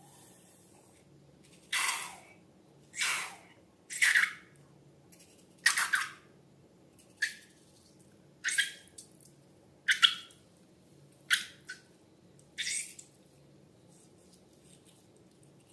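Liquid slime mixture squirting out of balloons in a run of about nine short wet spurts, each a quick hiss that drops in pitch, a second or so apart.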